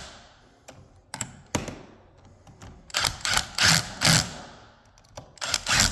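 Drill gun driving screws into a heavy-duty door hinge in short bursts of the trigger, run gently so as not to strip the screws. A few short bursts come about a second in, a cluster around three to four seconds in, and more near the end.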